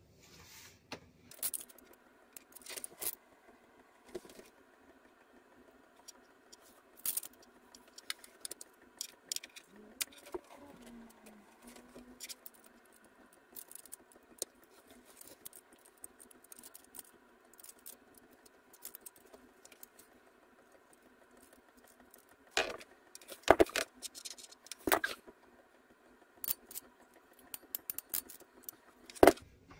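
Scattered sharp clicks and clacks of a hand tool and metal connectors worked on solar cable while wiring, with the loudest run of clicks late on.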